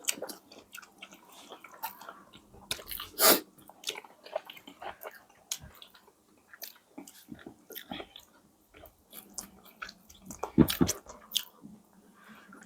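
Close-miked eating sounds: wet chewing and biting with small clicks and crackles, and two louder crunchy bites, one about three seconds in and one near the end.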